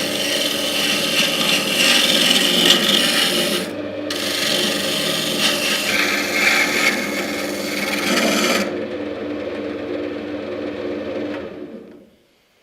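Wood lathe running with a steady motor hum while a birch workpiece is worked against a tool as it spins, a rasping, scraping noise. The scraping breaks off briefly about four seconds in and stops after about nine seconds. The lathe then runs on alone and stops shortly before the end.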